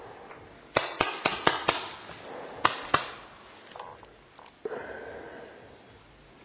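Paintball marker firing: five quick pops at about four a second, then two more about a second later.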